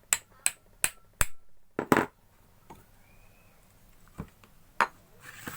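Sharp metallic clicks and taps as a key and impeller are fitted onto a water pump motor's shaft: a quick run of about three clicks a second, two louder ones about two seconds in, then a few scattered taps.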